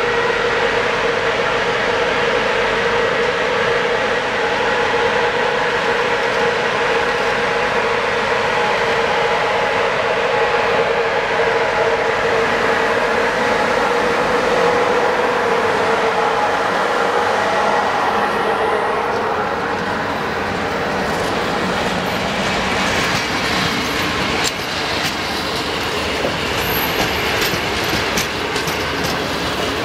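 A CFR class 060-EA1 electric locomotive hauling a passenger train passes close by with a steady hum made of several held tones. After the locomotive has gone by, the passenger coaches roll past, their wheels clicking repeatedly over the rail joints.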